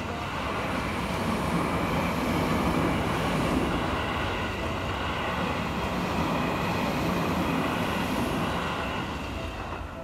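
Seibu 30000 series electric commuter train passing close by: a steady rumble and rush of wheels on rail that fades near the end as the last car clears.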